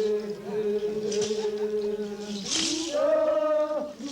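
Men's ritual chanting in long held notes that step up to a higher pitch about three seconds in, with a short shaking hiss repeating about every second and a half.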